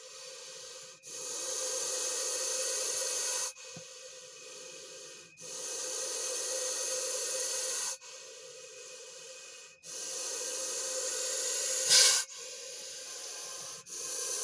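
Russell's viper giving a loud defensive hiss with each breath: three long hisses of about two to four seconds on the exhale, with a quieter hiss on each inhale between them. A short sharp bump about twelve seconds in is the loudest moment.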